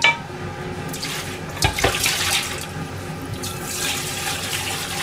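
Kitchen tap running into a stainless-steel sink over a frying pan and a pot, with a metal clank of the pan at the start and a knock of cookware about two seconds in.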